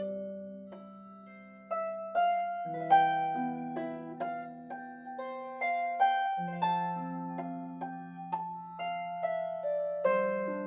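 Blevins 38-string lever harp playing a slow solo melody: plucked notes ring on over held bass notes. A low chord fades out over the first second and a half before new notes come in.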